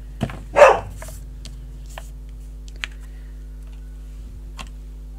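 Crafting tools and paper being handled on a table: a knock, then a louder short clatter about half a second in, followed by a few light clicks and taps.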